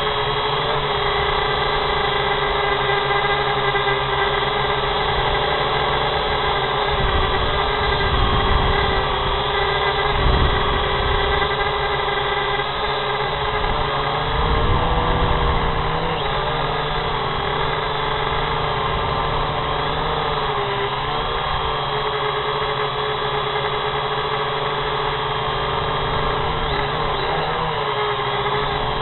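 A drone's motors and propellers whining steadily, heard from its own onboard camera, the pitch wavering a little as it manoeuvres. Low rumbling gusts come in about seven and fourteen seconds in.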